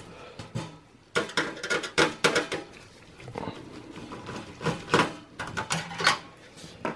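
Screwdriver working the motherboard screws in a steel PC case: irregular metallic clicks and clinks as screws are turned out and handled.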